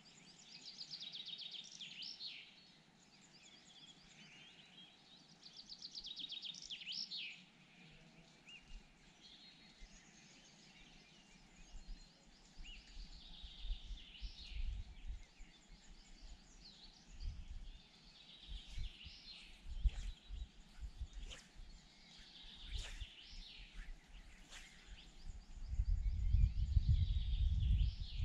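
Songbirds singing, with long trilled phrases repeating every few seconds and several shorter calls later on. From about halfway through, low rumbling hits the microphone, heaviest near the end.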